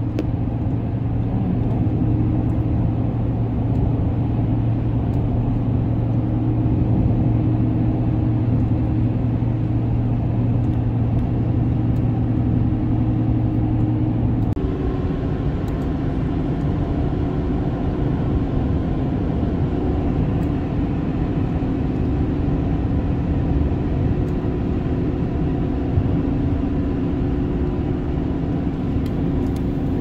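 Pickup truck driving at highway speed, heard from inside the cab: a steady engine hum over tyre and road noise. About halfway through, the low hum drops away and the tone shifts abruptly.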